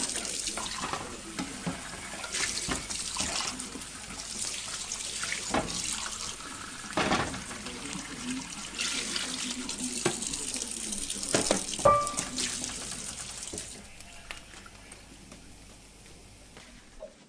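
Mutton masala sizzling in a steel pot while a steel spoon stirs it, scraping and knocking against the pot, with one ringing clink about twelve seconds in. The sizzle gets quieter near the end.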